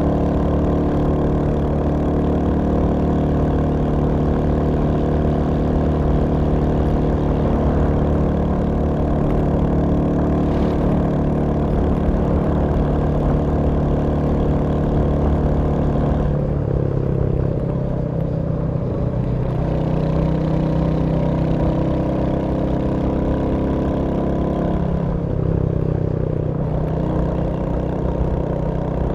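Royal Enfield Hunter 350's single-cylinder engine running steadily; its note drops twice, about two-thirds of the way through and again near the end, before picking up again.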